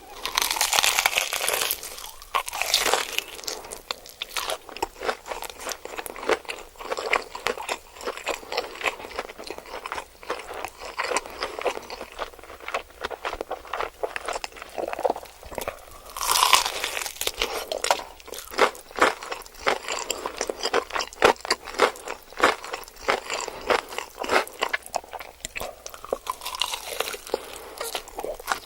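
Deer chewing food close by: a long, irregular run of crisp crunches. There are a few louder rustling stretches near the start, around the middle and near the end.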